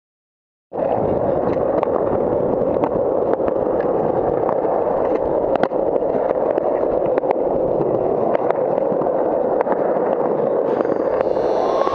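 Skateboard wheels rolling over a concrete skatepark surface, heard close up: a steady, loud rolling noise with small clicks from grit and seams in the concrete. It starts suddenly about a second in, after a moment of silence.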